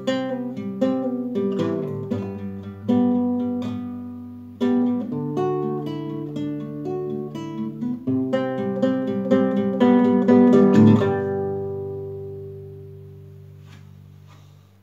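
Nylon-string classical guitar played solo: picked notes and chords of a song's closing passage, ending in a strummed chord about eleven seconds in that rings on and fades away.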